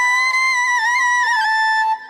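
Background music: a flute plays a slow melody line, holding a long wavering note that ends just before the close.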